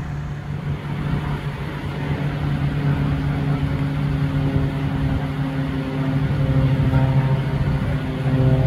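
A motor vehicle's engine running with a steady low hum, growing gradually louder.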